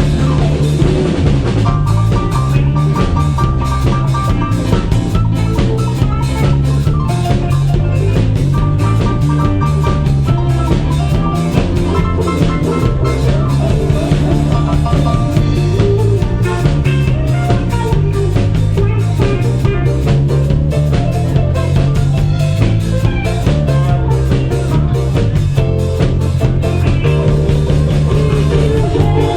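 Live band playing an instrumental passage with drum kit, guitar and bass, a steady beat throughout.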